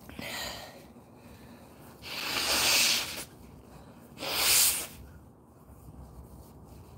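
Three breathy puffs of air breathed out close to the microphone: a faint one at the start, a longer one about two seconds in, and a short, sharp one about four seconds in.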